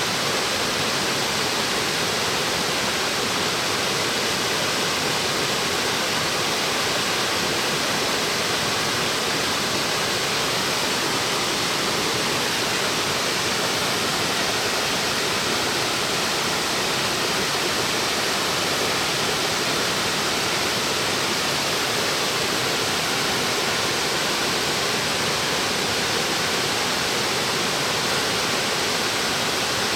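Waterfall plunging about 40 metres onto rock: a steady, even rush of falling water.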